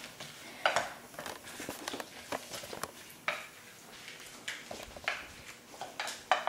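Spoon mixing a sauce with peanuts and water chestnuts in a bowl, tapping and clinking against the bowl at irregular moments.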